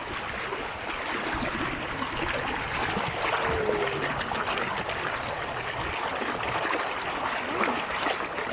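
Waterfall stream rushing steadily over rocks.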